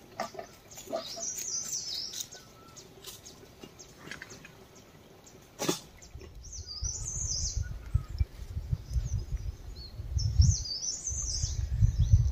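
Small songbirds chirping in quick phrases of high notes, three times. A sharp click comes about halfway, and after it a low rumble grows louder.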